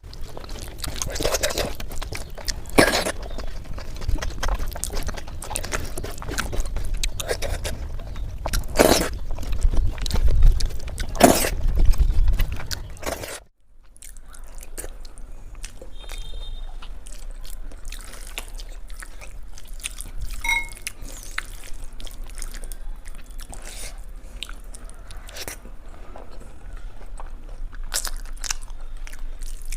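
Close-miked chewing and biting of fried eggplant slices (baigan bhaja), with crunches and crackling mouth sounds. The sound drops out briefly about 13 seconds in, then carries on quieter.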